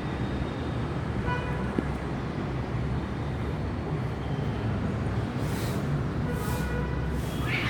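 Steady street traffic noise with a brief vehicle horn toot about a second in. A cat's yowl begins near the end.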